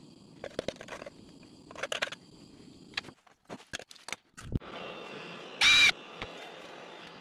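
Light clinks and scrapes of a steel square against an aluminium saucepan as melted crayon wax is scraped out of it. Then, a second and a half before the end, a Ryobi cordless drill whirrs loudly for a moment.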